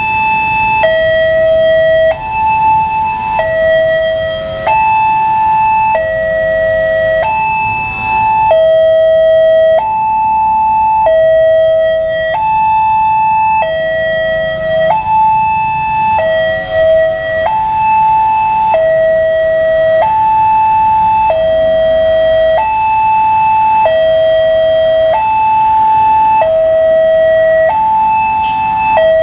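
Railway level-crossing warning alarm sounding from a horn loudspeaker on the crossing post: an electronic two-tone signal that alternates steadily between a higher and a lower tone. It warns that a train is approaching while the barriers are down.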